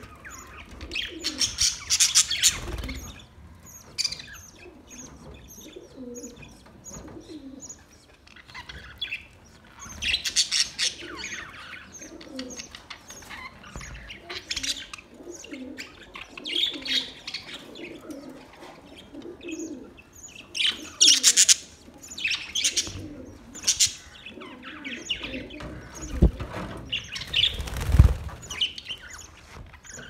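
A flock of budgerigars chattering and chirping, with several loud bursts of wing flapping. Two dull thumps come near the end.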